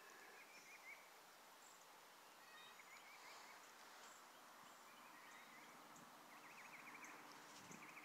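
Near-silent outdoor quiet with faint birdsong: a few short, rapid chirping trills and scattered brief high chirps.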